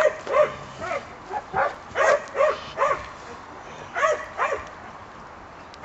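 Puppy barking in short, high barks, about nine in quick succession, with a pause of about a second before the last two.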